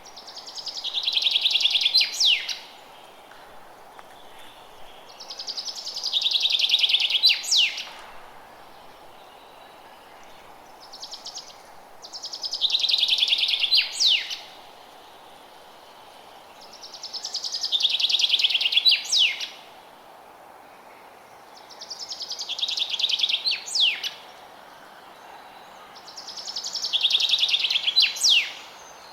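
A forest songbird singing the same song six times, about every five seconds: a fast, high trill that grows louder over about two seconds and ends in a quick sweeping flourish. Steady faint background hiss between songs.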